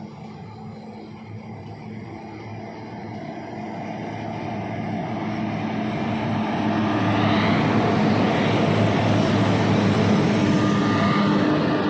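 Freight train hauled by a WAG-5HB electric locomotive approaching, growing steadily louder for about seven seconds, then running by at full loudness with a steady low hum.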